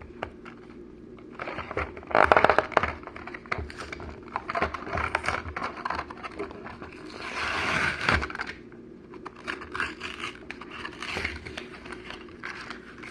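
Hot Wheels toy car packaging being opened by hand: cardboard and plastic blister crinkling, scraping and tearing, with irregular clicks and rustles and a longer continuous rustle about seven seconds in.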